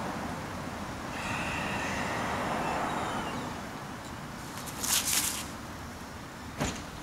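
Steady city traffic noise, with a short hiss in two pulses about five seconds in and a single sharp click shortly before the end.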